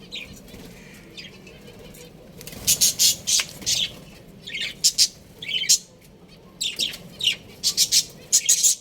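Birds chirping and squawking: many short, high-pitched calls in quick clusters, starting about two and a half seconds in.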